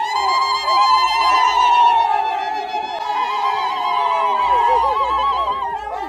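Several women ululating in high, wavering held cries that overlap one another, with crowd voices beneath.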